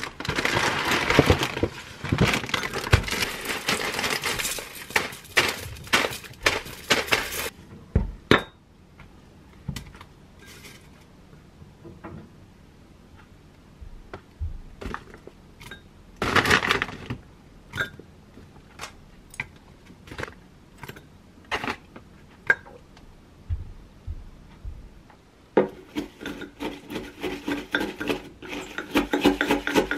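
Flaked cereal poured into a glass mug, a dense rattle for about seven seconds, followed by scattered clinks and taps against the glass as Greek yogurt is spooned in. Near the end, a wooden spoon stirs and taps quickly inside the glass mug.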